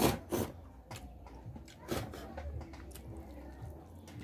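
Two sharp knocks right at the start and another about two seconds in, with small clicks from hands working through fish and rice, over a low steady hum.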